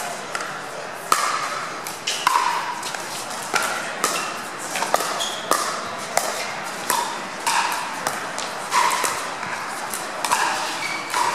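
Pickleball paddles striking a hard plastic pickleball in a rally, a sharp hollow pop every second or so, some in quick pairs, each with a short ring in the large hall.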